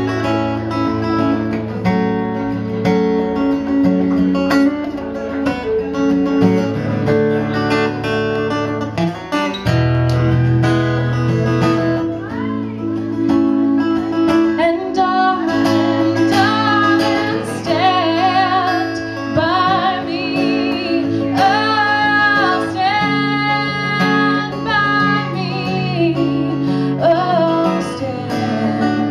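Acoustic guitar playing a song alone, then a woman's voice comes in singing over it about twelve seconds in, with long wavering held notes.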